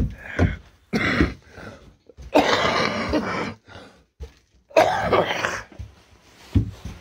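A man coughing and clearing his throat several times, rough hacking bursts with short pauses between them.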